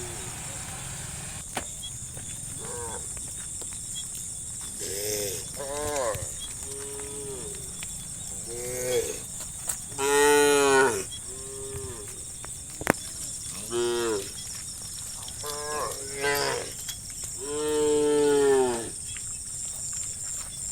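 Herd of cows mooing over and over, about a dozen calls of differing pitch and length one after another; the loudest come about halfway through and near the end.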